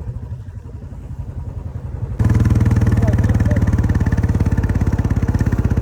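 Royal Enfield Bullet's single-cylinder engine running with a steady, rapid beat of exhaust pulses; about two seconds in it suddenly becomes louder and fuller.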